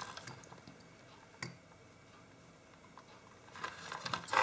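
Small handling clicks and one sharper click about one and a half seconds in. Near the end come the clinks and rattle of metal tweezers and screwdrivers being picked up from a silicone work mat.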